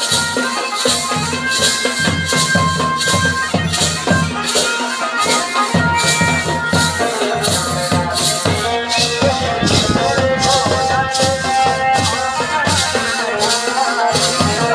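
Pahari folk music for a tandi song: jingling, rattling percussion keeps a steady beat under held melody notes.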